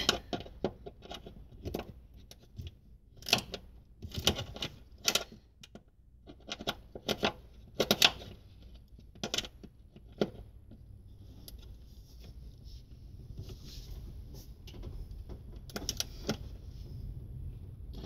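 A hand tool working the bolts that hold a throttle cable to the firewall: irregular sharp metallic clicks and knocks, with a faint scraping hiss in the middle.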